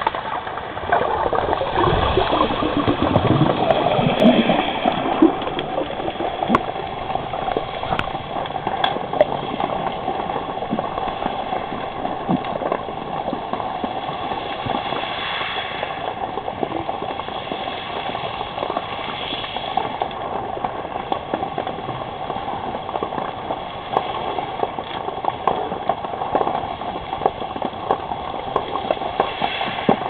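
Underwater water noise as picked up by a submerged camera: a steady bubbling, gurgling wash scattered with small clicks and crackles. It is louder and deeper for the first few seconds.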